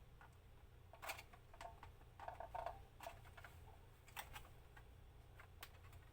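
Faint, irregular clicks and light knocks of hands handling a plastic toy, with a small cluster of them about two seconds in, over a low steady hum.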